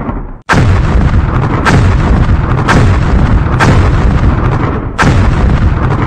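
A rapid run of heavy blasts, five in about five seconds, each rumbling on into the next: landmines detonating during clearance by an Uran-6 demining robot.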